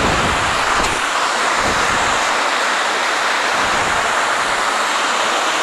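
Steady rush of a small waterfall cascading over rock ledges, with wind buffeting the microphone now and then.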